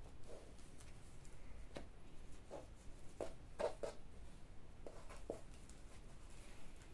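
Faint, brief brushes and taps of a necktie being slid and repositioned by hand on a wood-look floor, a handful of soft touches scattered through.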